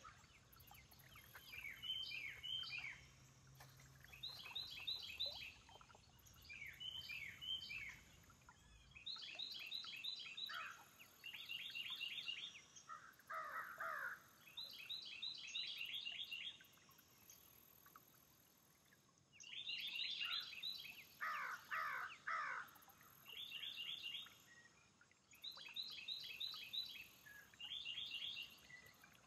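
Wild birds singing and calling: short bursts of rapid high notes repeated every couple of seconds, with two lower, harsher calls near the middle.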